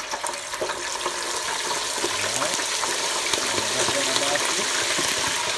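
Raw chicken wings frying in hot oil in an electric deep fryer: a steady, dense sizzling and bubbling hiss that grows louder over the first couple of seconds. Water left on the wings makes the oil bubble up.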